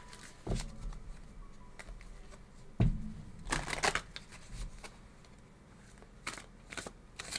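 A deck of oracle cards being shuffled and handled: soft rustles and taps, with a sharp knock about three seconds in and a short burst of rustling just after it.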